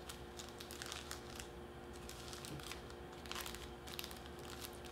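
Thin clear plastic treat bag crinkling faintly as a cakesicle is slid into it and the bag is handled, with soft scattered crackles.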